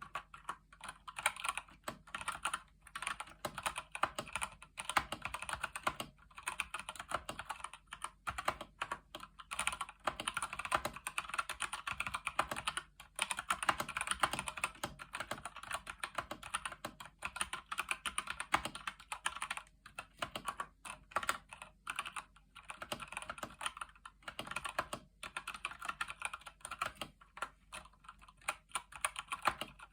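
Steady typing on a Keychron C1 mechanical keyboard with tactile Gateron Brown switches: a fast, continuous run of key presses with a few short breaks.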